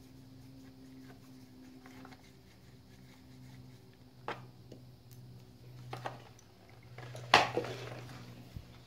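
A hex-bit screwdriver turned by hand to undo the engine-cover screws of a gas string trimmer: faint ticks and scrapes of the tool, a couple of light clicks, and one sharp clack about seven seconds in, over a steady low hum.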